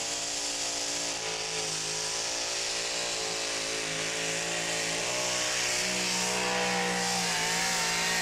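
Two-wheel-drive pulling truck's engine running flat out under full load as it drags a weight-transfer sled, its pitch holding high and wavering slightly, over a broad rushing noise.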